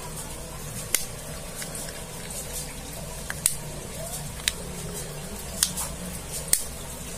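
A smartphone's plastic casing being pressed together by hand: about six short, sharp clicks spread unevenly over several seconds, as the back cover's clips snap into place. A low, steady hum runs underneath.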